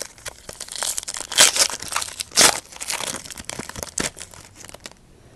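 Trading card pack wrapper being torn open and crinkled by hand: crackly rustling with two louder tearing bursts about one and a half and two and a half seconds in, then fading off near the end.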